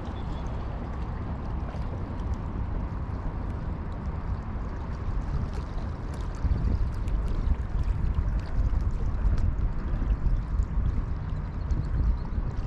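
Wind noise on the microphone over small waves lapping and gurgling against the rocks, growing a little louder about six seconds in.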